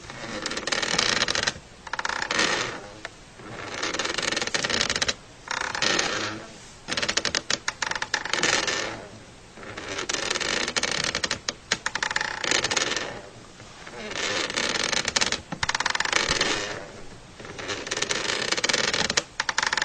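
An old chair creaking and crackling under weight, in repeated strains of a second or two each with short pauses between.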